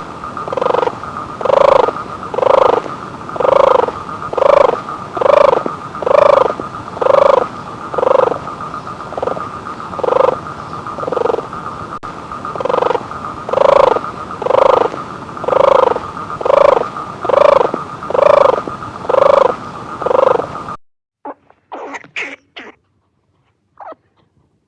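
An animal calling in a regular series, about one call a second, over a steady high hum. The calls stop suddenly near the end, and a few short, sharp sounds follow.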